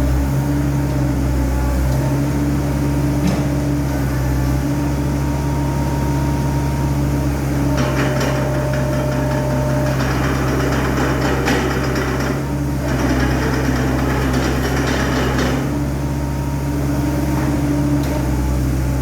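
Caterpillar 307D mini excavator's diesel engine running steadily. Two stretches of louder rattling noise come in the middle, about 8 and 13 seconds in.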